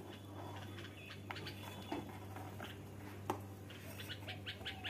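Faint birds chirping, with a steel spoon now and then knocking and scraping in a steel pan of thickening milk, over a steady low hum.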